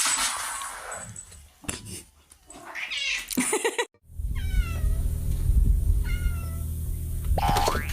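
Domestic cat meowing: in the second half, two calls about a second and a half apart, each falling in pitch, over a steady low hum. Scattered knocks and rustling come before them.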